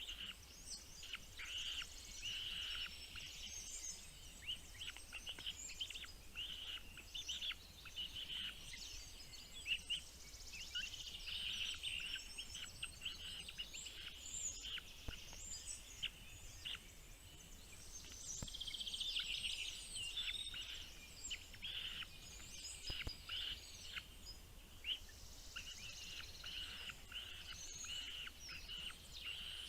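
Small birds chirping: a dense, unbroken run of short, high chirps and calls, many overlapping.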